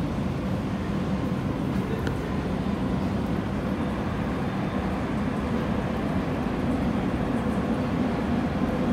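Steady low rumble of an underground Madrid Metro station, the hum of a station and its tunnels with no train at the platform.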